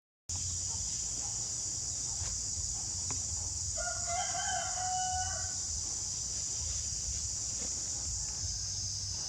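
A rooster crowing once, a single call of about two seconds about four seconds in.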